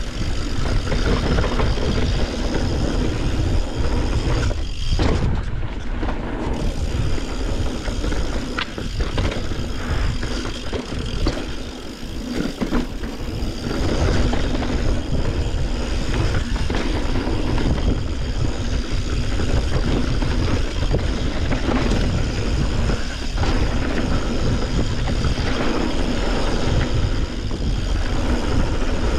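Steady rush of wind buffeting the camera microphone as a mountain bike rides fast down a dirt trail, with the tyres, chain and frame rattling. Scattered short knocks come from hitting rough ground.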